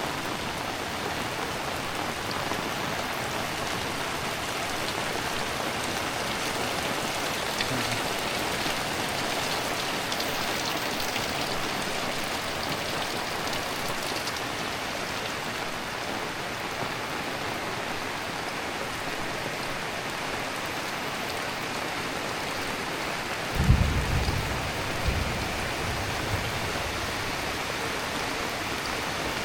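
Heavy rain falling steadily. About three quarters of the way through, a sudden low rumble starts and dies away over a few seconds.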